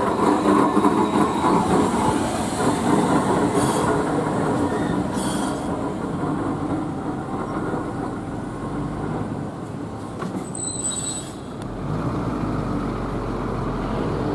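An Iyotetsu Moha 50-type streetcar running past on its rails and drawing away, its wheels rumbling and clattering over the rail joints, loudest at first and then fading. A brief high squeal comes about two-thirds of the way through.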